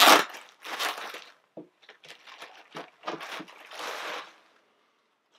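Packaging crinkling and rustling in a series of bursts as a shirt is unwrapped by hand. The loudest crackle comes right at the start, and it stops shortly before the end.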